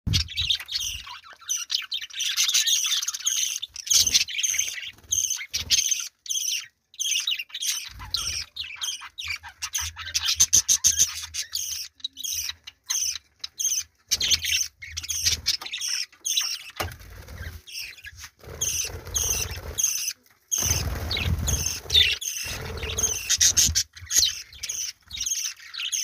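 A flock of budgerigars chattering: a dense, continuous run of rapid high chirps and warbles, with a low rumble now and then.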